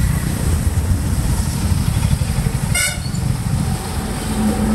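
Traffic on a flooded road: a loud, steady low engine rumble from a motorcycle and other vehicles passing close by, with a brief horn toot about three seconds in.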